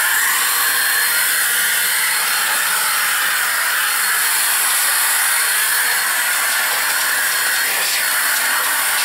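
Handheld electric air blower running steadily, a loud rush of air with a faint high whine, blowing dust off a workbench mat.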